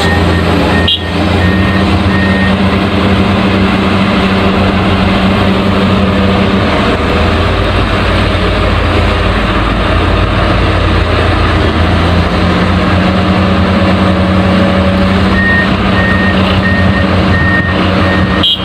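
Heavy construction machine such as a backhoe or excavator running with a steady engine drone, and a reversing alarm beeping at the start and again near the end.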